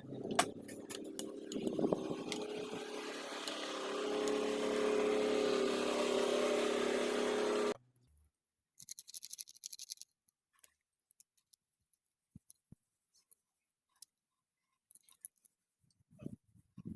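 A machine running steadily with a hum, a little louder about four seconds in, cutting off suddenly about eight seconds in; afterwards only faint scattered clicks and taps.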